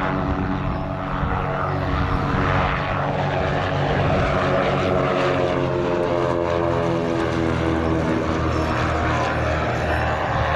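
Cessna O-2 Skymaster's front and rear piston engines and propellers running in a low pass, a steady engine-and-propeller buzz whose pitch slowly falls during the second half as the aircraft goes by.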